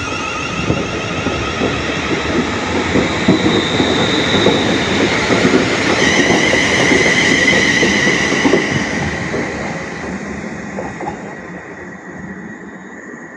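A train passing close by, its wheels clicking rapidly over the rail joints under a steady high whine. It grows louder to a peak about seven seconds in, then fades as it moves away.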